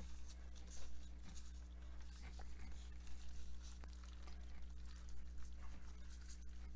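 Faint, irregular rustling and soft squishing as plastic-gloved hands roll a raw chicken skin stuffed with ham and egg into a roll on a wooden cutting board, over a steady low hum.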